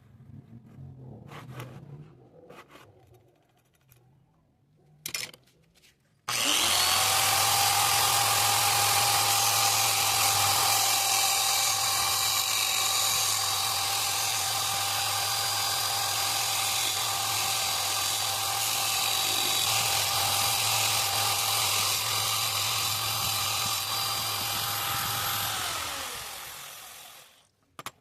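A few faint clicks, then an electric power tool's motor switches on, runs at a steady high speed for about twenty seconds, and winds down with falling pitch once switched off.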